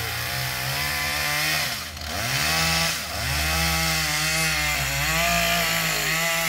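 Chainsaw running under load as it cuts into a tree trunk. Its pitch dips briefly several times as the chain bites into the wood, then picks back up.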